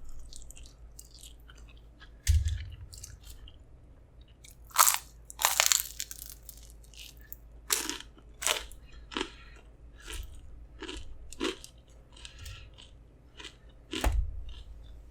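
Close-miked chewing with irregular crisp crunches as crunchy food is bitten and chewed. Two low thuds, about two seconds in and near the end.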